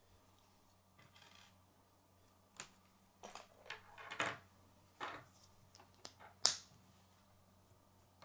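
K'nex plastic rods and connectors being handled and snapped together, with pieces scraping and knocking on a wooden tabletop: a scattered run of small clicks and rattles, the sharpest about six and a half seconds in.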